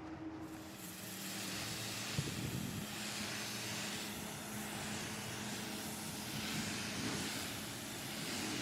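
Pressure washer running: a steady motor hum under a hissing water jet that swells and eases every second or two as the spray sweeps across a surface.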